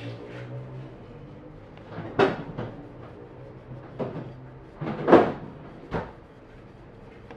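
A cloth rubbing and wiping the polished aluminium engine side cover of a Harley-Davidson Aermacchi Sprint 350, heard as about five short scrubbing swishes and knocks, the loudest about five seconds in, over a faint steady hum.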